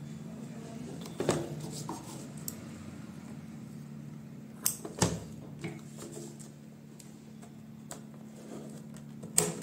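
Hands working at a small cardboard box, cutting its seal with scissors: a few sharp snips and scrapes about a second in, around five seconds in and near the end, over a steady low hum.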